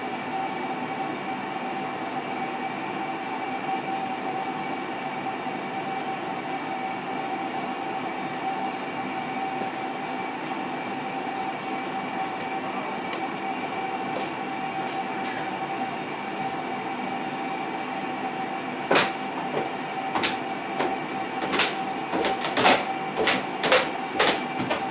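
KERR oil furnace burner running with a steady hum and whine during start-up. In the last several seconds it is joined by a string of sharp, irregular clicks.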